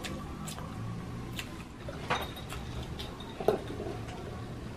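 Eating and food-handling sounds: scattered sharp clicks and taps, the loudest about two and three and a half seconds in, over a steady low background hum.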